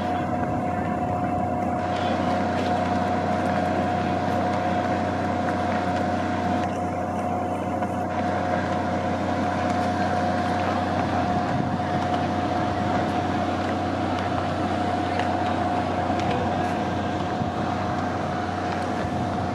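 A steady mechanical drone with a constant whine held on one pitch, unchanging throughout.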